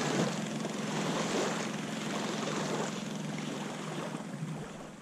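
Electric trolling motor on a kayak running with a steady low hum over a rush of water noise, fading out near the end.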